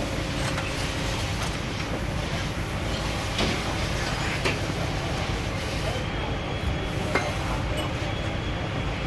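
Mechanics working on a rally car's front suspension and engine bay: a few short metallic clinks and knocks from hand tools and parts over a steady low rumble.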